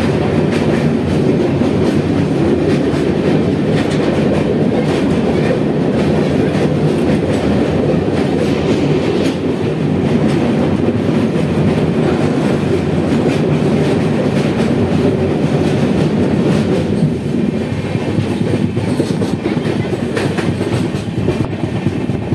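Amrapali Express passenger train running at speed over a steel truss girder bridge, heard from an open coach doorway: a loud, steady rumble and clatter of wheels on rails. It turns a little quieter over the last few seconds.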